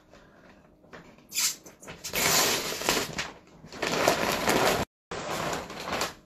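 Brown kraft wrapping paper being torn and crumpled off a wooden picture frame, making rustling, tearing noise in several spells. The sound cuts out completely for a moment about five seconds in.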